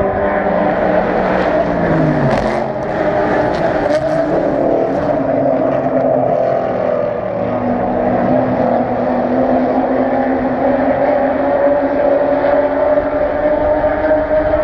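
Race car engines running in a pit lane: a steady engine drone, with one car's engine note falling as it slows about two seconds in, and a few short sharp clacks in the first few seconds.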